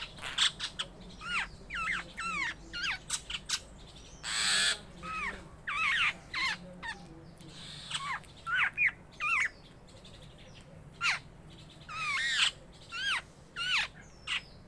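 Birds calling: many short, sharp calls repeated in quick series, with a harsher, rasping call about four seconds in and again about twelve seconds in.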